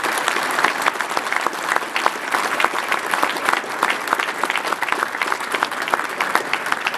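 Crowd applauding, a dense steady clatter of many hands clapping.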